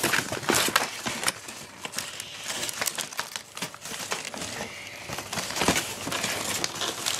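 Toy packaging crinkling and rustling as it is handled, with scattered light clicks and knocks of plastic parts.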